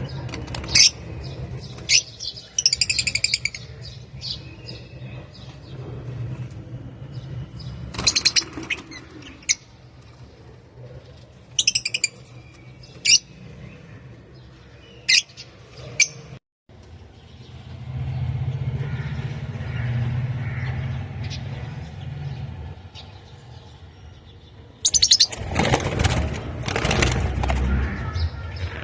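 Pet lovebirds giving short, sharp, high chirps and squawks in scattered bursts, then calling harshly and continuously for the last few seconds. A low, steady hum runs underneath.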